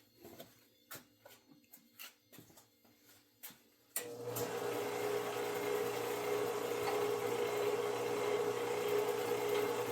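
Several light knocks and taps, then about four seconds in a small electric power tool switches on and runs steadily with a constant whine.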